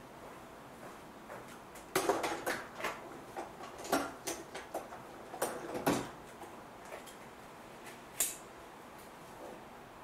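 Metal tools and brake parts being handled, clinking and clattering in a scattered series of sharp knocks and rattles, busiest from about two to six seconds in, with one last clink near the end.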